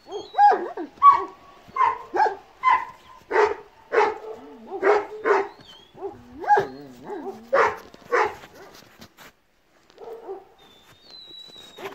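Large Kangal shepherd dog barking about a dozen times in an irregular series, stopping about eight seconds in.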